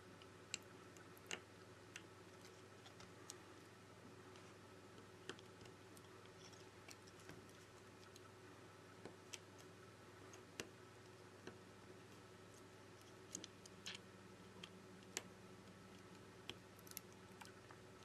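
Near silence broken by scattered small, sharp clicks and taps at irregular intervals: fingers pressing flex-cable connectors and parts into place inside an opened smartphone during reassembly. A faint steady hum lies underneath.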